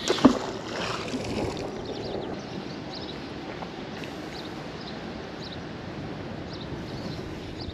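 A fishing magnet splashes into the river about a quarter second in. Steady water noise from the river around the boat follows, with a few faint small ticks.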